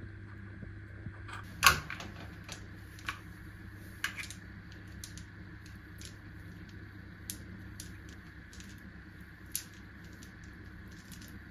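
Scattered light clicks and taps, with one louder knock near two seconds in, over a steady low hum.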